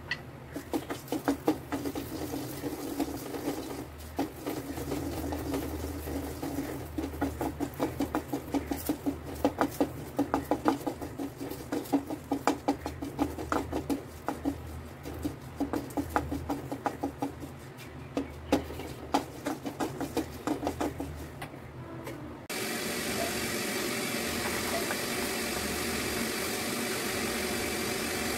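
Wooden spatula clicking and scraping against an aluminium kadai while curry leaves are dry-roasted: a fast, irregular run of sharp clicks over a low steady hum. About 22 seconds in this stops abruptly and gives way to a steady, even hiss.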